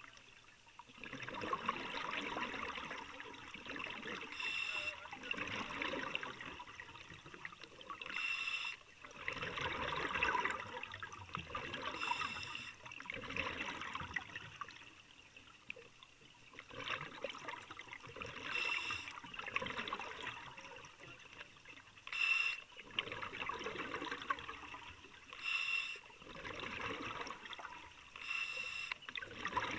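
Underwater bubbling and gurgling picked up by a submerged camera, swelling and fading every three to four seconds, with short sharp hissing bursts between the swells.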